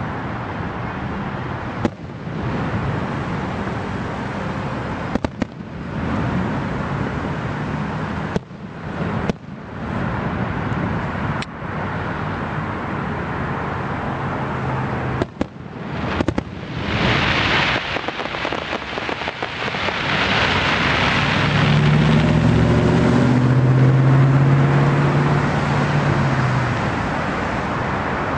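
Fireworks going off in a steady, dense din with scattered sharp cracks. In the last several seconds a vehicle engine's low hum rises over it.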